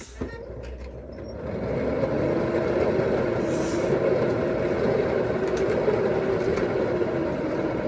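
Spin dryer of a mini manual washing machine spinning wet laundry: a whirring that builds up over the first couple of seconds, then runs steadily.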